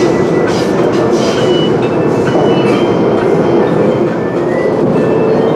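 MTR West Rail Line eight-car electric train running between stations, heard from inside the carriage: a steady, even rumble of wheels and running gear, with a few short faint high tones over it.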